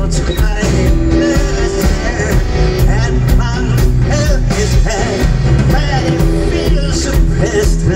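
Live rock band playing loudly: a steady drum-kit beat under electric guitar, bass guitar and keyboards, with a singer's voice over the top, heard from the audience.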